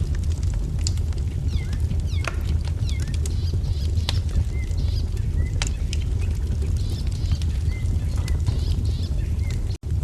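Wood fire crackling, with sharp pops scattered over a steady low rumble, while small birds chirp in short rising and falling calls. The sound cuts out for an instant near the end.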